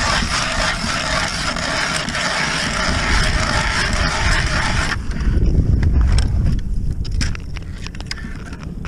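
Ice auger boring a hole through pond ice: a steady scraping hiss of the blades shaving ice that stops abruptly about five seconds in, followed by lower knocks and rustling.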